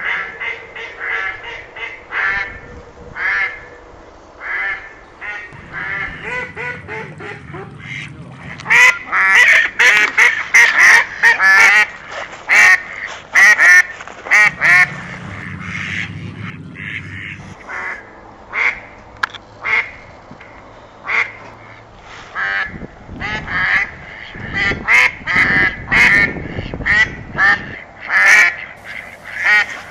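Geese honking, many short calls repeated in quick succession and overlapping, as from several birds at once. The calling is loudest from about nine to fourteen seconds in and again from about twenty-three seconds in.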